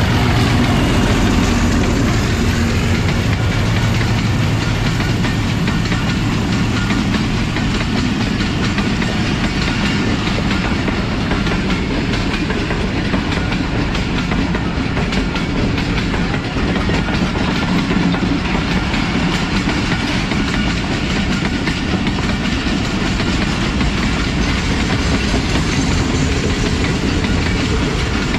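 A diesel-hauled passenger train running past on the adjacent track: a tone falling in pitch as the locomotive goes by in the first couple of seconds, then the steady clatter of the coaches' wheels over the rail joints.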